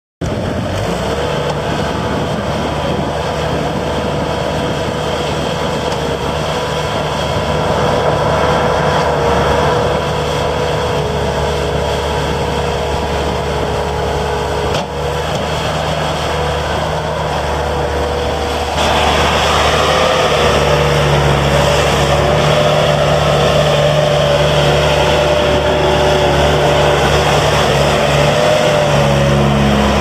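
2003 Bobcat S220 skid steer loader's diesel engine running steadily as the machine drives and turns, with a steady whine over the engine. It gets louder about two-thirds of the way through.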